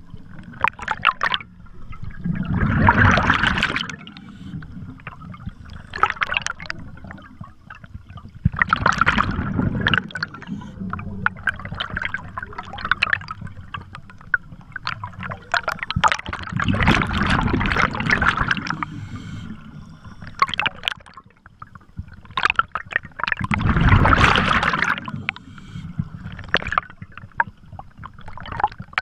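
Scuba diver breathing underwater through a regulator: four loud gushes of exhaled bubbles, about six to seven seconds apart, with fainter bubble crackling between them.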